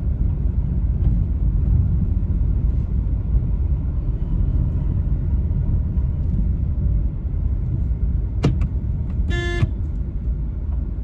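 Steady road and engine rumble inside the cabin of a moving car. Near the end, a click and then a short single honk of a car horn.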